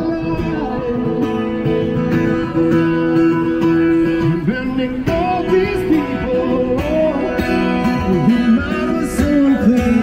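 Music: acoustic guitar played with a voice singing a melody over it.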